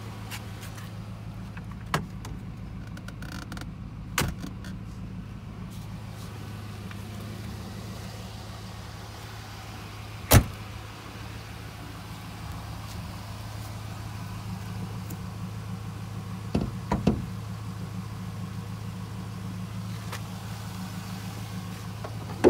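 1999 Camaro SS's 5.7-litre LS1 V8 idling with a steady low hum. Several short, sharp knocks and clicks from the car's body and latches sound over it, the loudest about ten seconds in and another right at the end.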